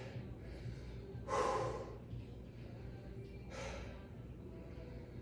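A man breathing out hard through his mouth twice, a louder blast about a second in and a weaker one about three and a half seconds in: the heavy breathing of straining to hold a wall sit.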